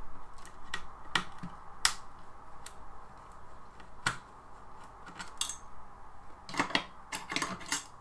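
Screwdriver working the screws on a plasma TV's power supply board: scattered sharp metallic clicks and taps against the screws and metal chassis, with a quick run of clicks near the end.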